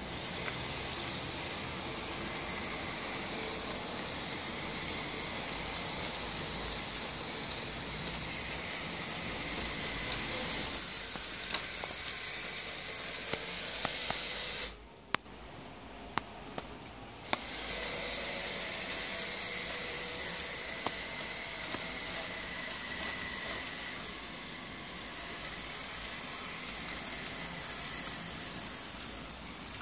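Model tram with trailer running on its layout track: a steady high whir of the small electric motor and wheels on the rails. Midway it cuts out for about two seconds, and a few sharp clicks sound before the whir resumes.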